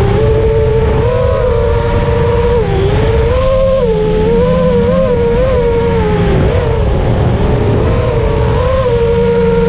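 Brushless motors and 5-inch 3D props of an FPV freestyle quadcopter, heard from its onboard camera. They give a steady high whine whose pitch wavers and dips as the throttle changes, over a rush of wind on the microphone.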